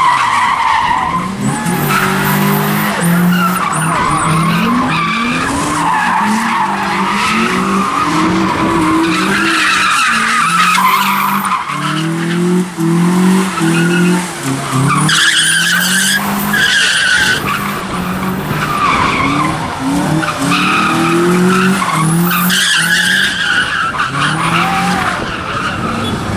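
A car doing donuts: its engine revs in short rising pulses, over and over, while the rear tyres squeal and skid in a wavering high screech.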